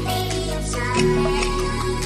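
Background music: an electronic pop track with a steady beat and a bass line, changing chord about a second in.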